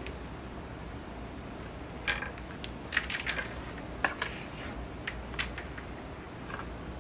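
Crokinole discs flicked on a wooden board, clacking against other discs and the pegs: a handful of short sharp clicks, the loudest about four seconds in, over a low steady room hum.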